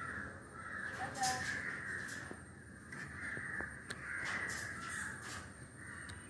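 Macaws calling with several short, harsh caws, the loudest about a second in, over a steady high-pitched drone.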